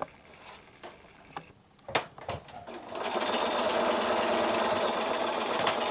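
Bernina electric sewing machine stitching a seam through patchwork squares, running steadily at speed from about halfway in. It is preceded by quiet fabric handling and a sharp click about two seconds in.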